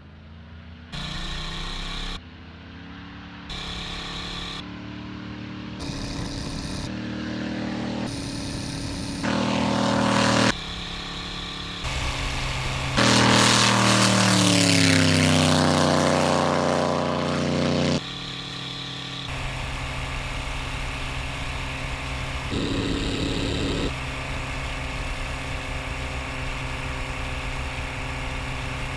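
V8-powered propeller airplane at takeoff power, heard in several short cuts from a distance, then close. About 13 s in it passes loud and near, its pitch falling as it goes by. After that comes a steady engine and propeller drone from on board.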